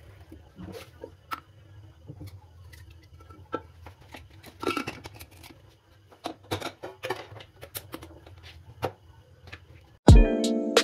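Scattered clinks and knocks of steel cookware being handled at a gas stove, as a pressure cooker and pots are set down and moved, over a steady low hum. Near the end, music starts abruptly.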